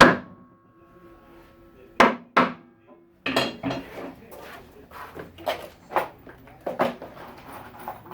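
Knocks and clatter of cabinet assembly work, wood and metal parts being struck and handled. A hard hit at the start leaves a brief metallic ring, two more hits follow about two seconds in, then a quicker run of lighter knocks.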